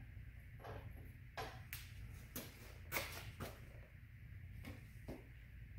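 Light clicks and knocks of hand tools and metal engine parts being handled, about eight in all, the loudest about three seconds in, over a faint low hum.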